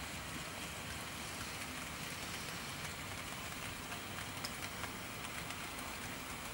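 Faint steady hiss with a few light ticks: OO gauge model trains running quietly on the track, the Hornby Stanier 4P tank engine hauling coaches among them.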